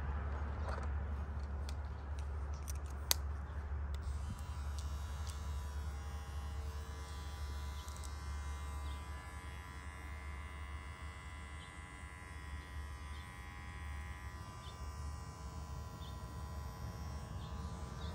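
Nova cordless hair trimmer running with a steady electric buzz while it trims the hairline at the back of the neck. There is a single sharp click about three seconds in.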